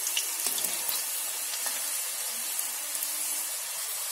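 Potato fries deep-frying in hot oil: a steady sizzle with a few faint crackles.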